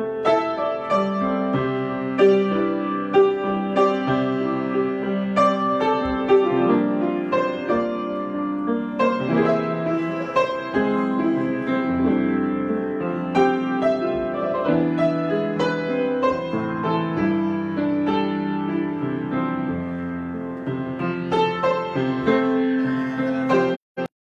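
Solo piano improvisation: chords and melody notes struck and sustained at an unhurried pace. The sound cuts out twice for an instant near the end.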